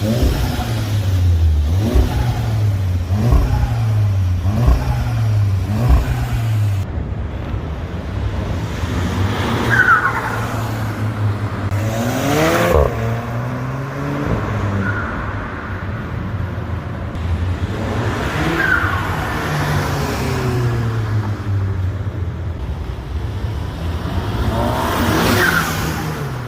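2015 Volkswagen Golf GTI Mk7's turbocharged 2.0-litre four-cylinder on its stock exhaust: quick throttle blips in the first few seconds, then a few longer revs that rise in pitch. With the bypass valve unplugged, the turbo flutters when the throttle closes.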